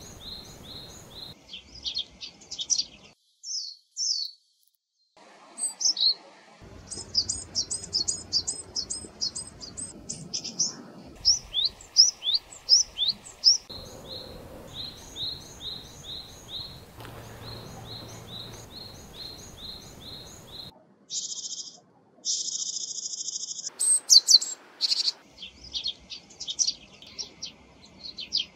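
Small songbirds calling and singing in a run of short spliced recordings: quick high chirps, rapid trills and repeated call notes of common Japanese garden birds such as the Japanese white-eye, Japanese tit and tree sparrow. About three-quarters of the way through, a steady buzzy hiss lasts roughly two seconds.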